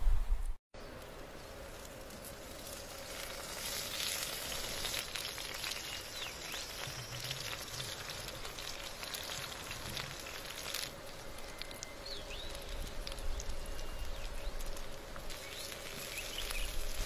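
Fish skeleton frying on a hot stone slab over a fire, sizzling steadily with fine crackles.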